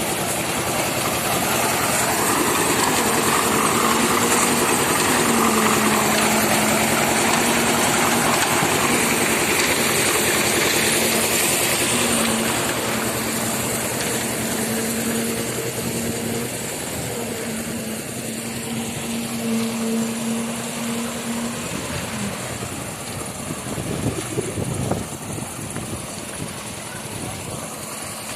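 An engine running steadily over site noise, with a steady hum that stops about three-quarters of the way through; a few short knocks follow.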